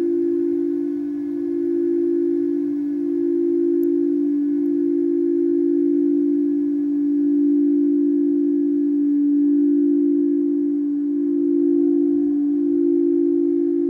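Quartz crystal singing bowls played by rubbing the rim with a mallet, giving two notes held together in a steady, sustained ring that wavers slightly. A faint higher note joins near the end.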